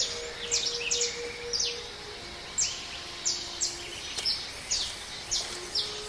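Jungle ambience of rapid, repeated high chirping calls, several a second, from birds or night creatures. Underneath, a soft flute holds low notes that step down in pitch and rise again near the end.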